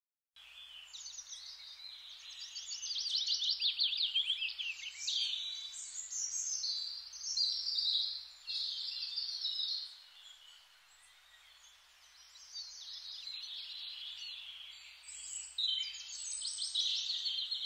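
Birds chirping and trilling in quick, high-pitched runs that come in bouts, with a quieter lull midway.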